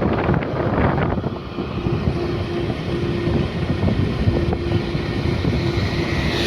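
Steady rush of water falling at a small waterfall, with wind buffeting the microphone.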